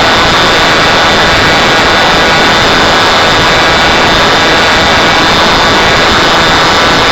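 Ritm-M model engine running loud and steady on a test run, holding an even speed throughout.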